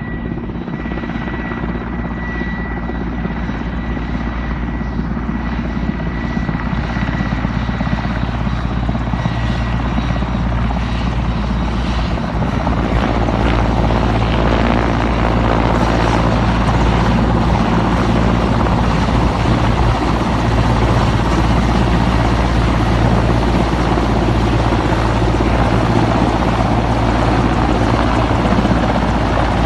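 Helicopter rotor and engine running steadily, the noise growing louder over about the first thirteen seconds, with a thin high whine that fades out around ten seconds in.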